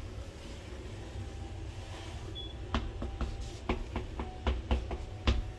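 A steady low rumble, then from about three seconds in a run of about ten light, irregular clicks and taps.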